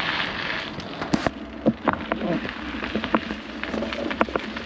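Full-suspension bicycle on a bumpy forest path: rolling noise that fades about a second in, then scattered knocks, clicks and short rattles.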